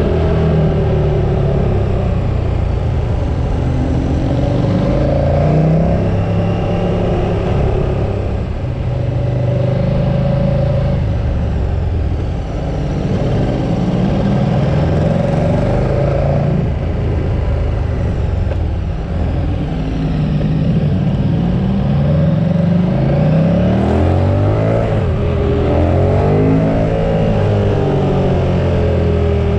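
KTM 1290 R's V-twin engine under hard riding, the revs climbing and dropping over and over as the bike drives out of bends and backs off into the next. Rushing wind noise runs underneath.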